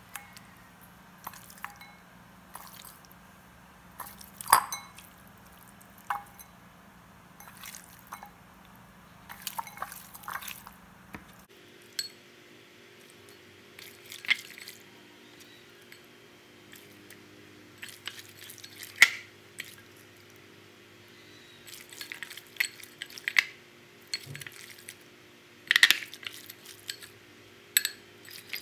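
Raw pork chops being handled and laid into a ceramic bowl: scattered soft wet squishes and slaps, with occasional light clinks against the bowl, over a faint steady hum.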